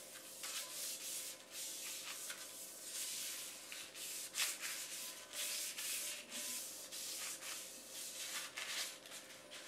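Coffee filter rubbing seasoning oil over the inside of a Wagner cast iron skillet: a run of quick scratchy wiping strokes, about two a second.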